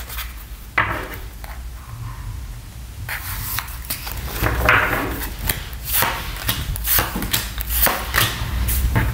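A deck of tarot cards being shuffled by hand, a string of quick papery slaps and slides. Near the end, cards are dealt out onto a wooden tabletop.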